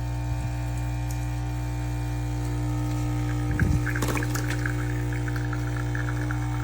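Capsule espresso machine's pump running with a steady hum; a knock comes about three and a half seconds in, then coffee starts spitting and sputtering out into the cup.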